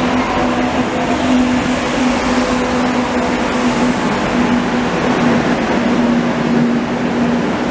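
Madrid Metro train rolling alongside the platform and slowing as it pulls in: a loud, continuous rumble of wheels on rails with a steady hum running through it.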